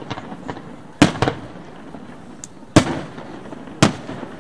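Display fireworks bursting overhead: two sharp bangs in quick succession about a second in, another near three seconds and a fourth near four, with fainter pops between.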